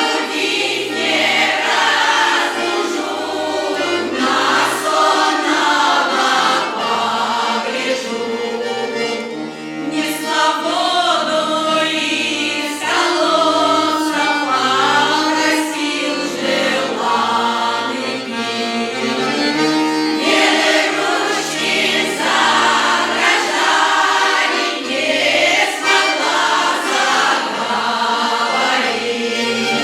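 A Russian folk choir singing humorous pripevki (chastushki) in several voices with instrumental accompaniment, phrase after phrase with short breaks between lines.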